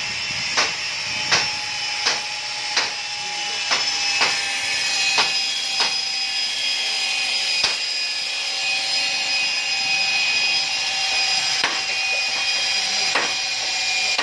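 Electric drill running steadily as it bores into a wooden beam, its whine drifting slightly lower. Sharp knocks come about every 0.7 seconds for the first few seconds, then only now and then.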